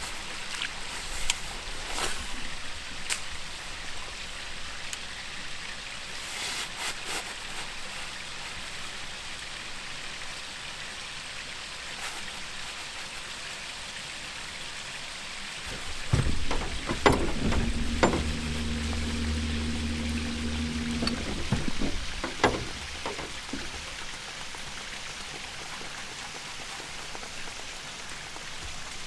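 A steady soft hiss of outdoor noise with a few light clicks. About sixteen seconds in, a louder low hum with a steady pitch comes in for about five seconds.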